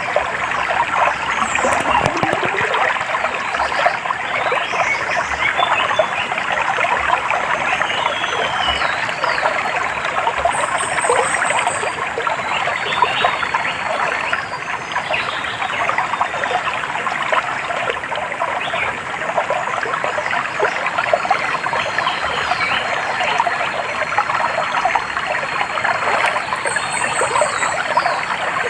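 Stream water trickling and babbling steadily over stones, with short high bird chirps here and there above it.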